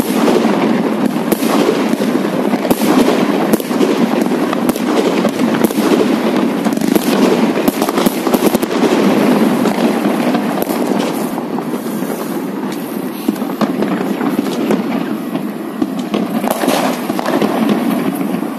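Many fireworks going off at once: a dense, continuous crackle of bursts and pops. It thins out and grows a little quieter about halfway through.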